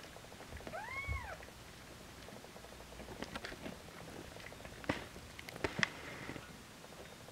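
A cat gives one short, high mew that rises and then falls, about a second in. Then comes a scatter of sharp, wet clicks as the tabby mother cat licks her newborn kitten clean.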